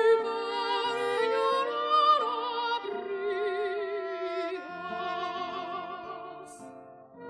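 Soprano voice singing with violin and guitar accompaniment, the held notes carrying a wide vibrato. The phrase dies away near the end.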